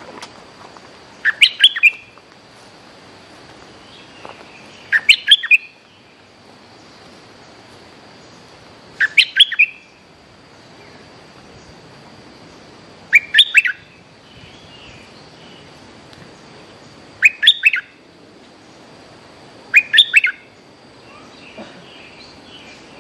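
Bulbul singing short bursts of quick, bright notes, six phrases about every four seconds.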